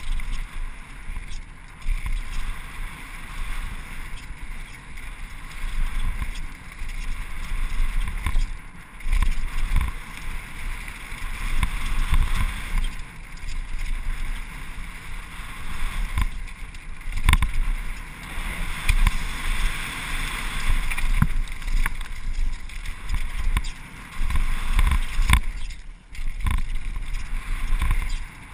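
Wind rushing over a helmet camera's microphone during a fast downhill mountain-bike run on a dirt trail, with the rumble of the tyres over the ground and a few sharp knocks from bumps.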